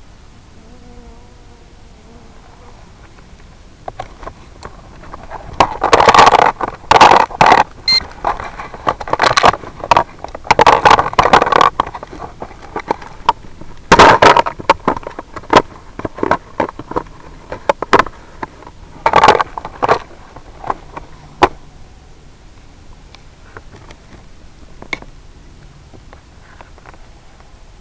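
Steady hiss with loud, irregular crackling and scraping bursts from about six to twenty-one seconds in, fading back to hiss near the end. Typical of static on an analog FPV video link's audio channel.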